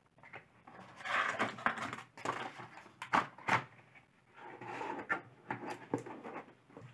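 Cardboard packaging being handled and the box lid slid down over the box: irregular scraping and rustling of cardboard, with a few sharp knocks around three seconds in and again near the end.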